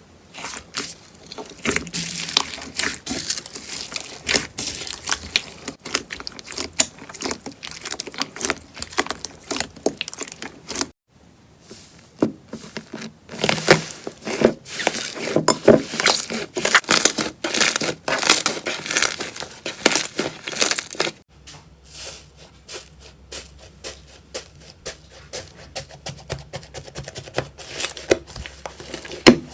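Slime being squeezed and pressed by hand, giving dense crackling and popping clicks. It changes abruptly about 11 and 21 seconds in as one clip gives way to the next.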